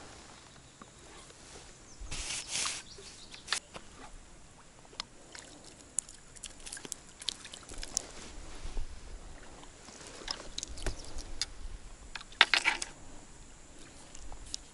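Handling noises of float-fishing tackle at the water's edge: scattered soft clicks and rustles, small water splashes from the cast, and two short swishing noises, one about two seconds in and a louder one near the end.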